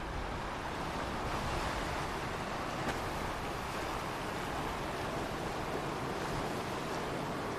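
Ocean waves: a steady wash of surf with no distinct breaks.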